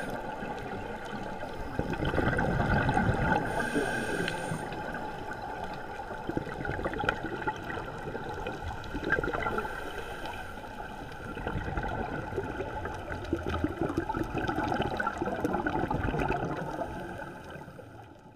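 Underwater recording of a scuba diver's regulator breathing: muffled rushing and bubbling of exhaled air that swells and eases several times, fading out near the end.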